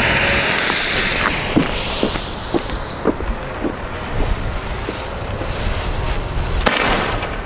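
Small ground firework (Keller Klabautermann) burning after being lit, with a loud hiss that fades after about two seconds, followed by a few scattered small pops and a sharper pop near the end.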